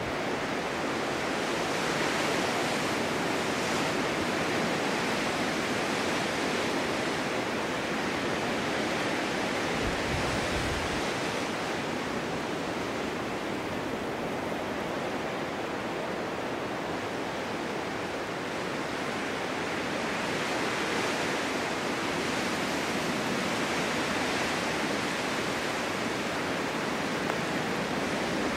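Wind blowing steadily through a snow-covered forest in a snowstorm, a constant rushing that swells and eases in slow gusts, with a brief low rumble of wind on the microphone about ten seconds in.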